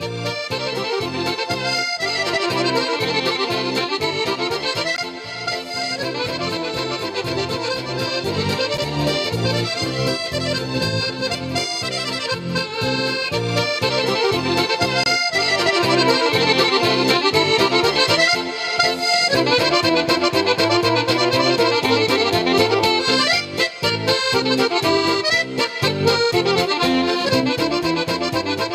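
Piano accordion playing an instrumental break in a lively folk-style song, over a steady rhythmic beat.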